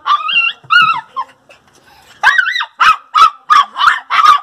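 Miniature pinscher puppies crying: a couple of high, wavering whines in the first second, then a quick run of about eight short, high-pitched yelps from about two seconds in. The puppies are crying to be fed.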